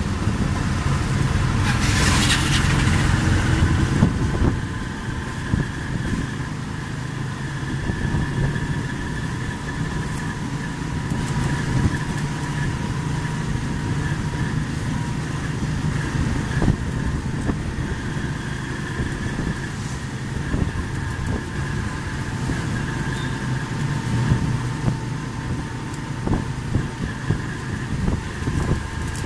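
Small vehicle's engine running with road noise, heard from inside its open-sided cab while riding through traffic. A short, louder burst of noise comes about two seconds in.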